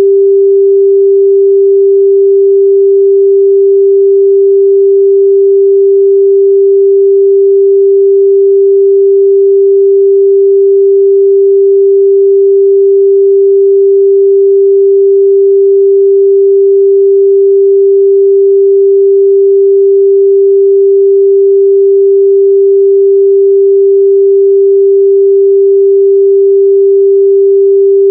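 Steady, unbroken 394 Hz sine-wave test tone, a single pure pitch held at constant loudness.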